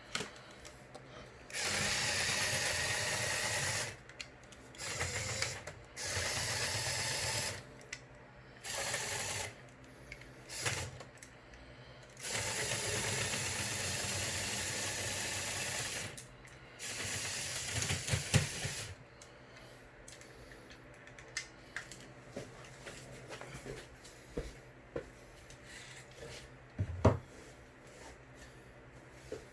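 Small electric motors and plastic gears of a motorized Lego Technic excavator model whirring in repeated runs of one to four seconds, each starting and stopping abruptly. Later come scattered clicks and one sharp knock.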